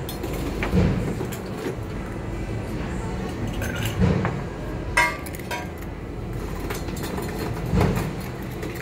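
Ice being scooped from a metal ice bin and dropped against glassware: several separate clinks, the clearest about five seconds in, with a short ring.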